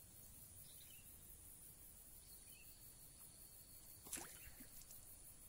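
Near silence: faint, high, pulsing chirring of insects. About four seconds in there is one brief knock.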